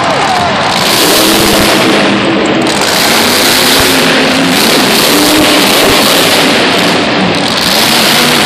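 Grave Digger monster truck's supercharged engine revving hard, very loud and echoing in an enclosed arena, surging on the throttle and easing off briefly about two seconds in and again near the end.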